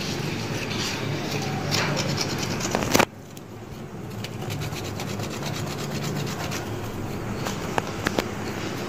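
Knife blade scraping singed hair and charred skin off a goat's trotter in repeated strokes. A sharp, loud scrape about three seconds in, then softer scraping.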